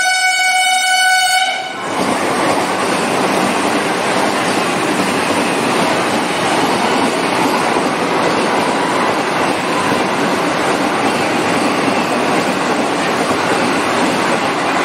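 Express train's horn sounding, a steady multi-note blast that cuts off about two seconds in, then the loud, steady rushing noise of the train passing at speed.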